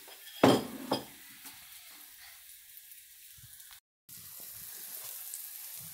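Banana-and-oat pancakes frying in hot coconut oil in a frying pan: a steady sizzle with fine crackling. Two sharp knocks sound about half a second and a second in, and the sound cuts out briefly a little before two-thirds of the way through.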